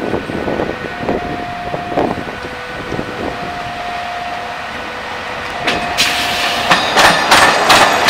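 INKA CC 300 diesel-hydraulic locomotive approaching and passing close by, its engine running and growing louder. For the last couple of seconds its wheels clack steadily over the rail joints and diamond crossing.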